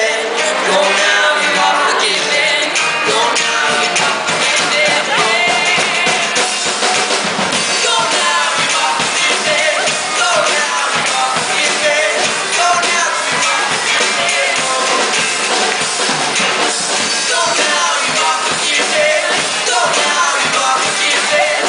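A song performed with singing over a drum kit and band, steady throughout.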